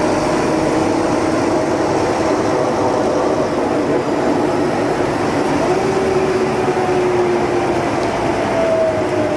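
Scania K320UA articulated bus heard from inside the passenger cabin while driving: a steady engine and drivetrain drone with road noise, and a whining tone that steps up in pitch about six seconds in.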